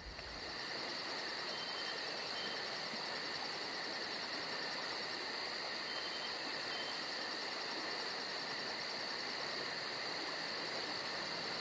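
Insects calling in summer woods: a steady high-pitched trill, with a much higher, fast rapid pulsing over it that drops out for about a second past the middle.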